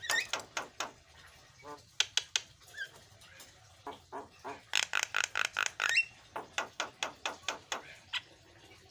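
Javan myna singing: rapid strings of harsh, grating notes in bursts, with a short rising whistle about six seconds in.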